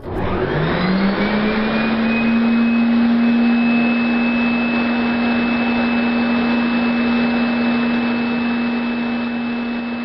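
Dyson upright vacuum cleaner switched on: the motor spins up with a rising whine over the first couple of seconds, then runs steadily at one pitch with a thin high whistle above it.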